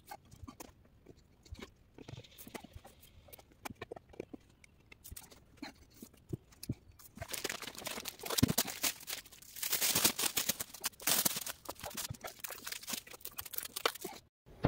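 Faint scattered taps and clicks, then from about seven seconds in, clear plastic window shrink film crinkling and rustling in loud bursts as it is handled and laid over a wooden frame.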